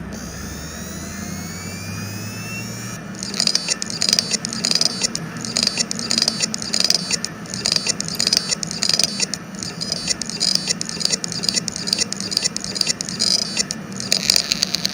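A Seagate Exos X18 16TB helium hard drive powering up: the platters spin up with a rising whine for about three seconds, then the heads begin knocking in an irregular run of clicks. The knocking is the sign of several failing read heads (heads 3, 4 and 5), with the main head still working well enough for the drive to limp through initialisation.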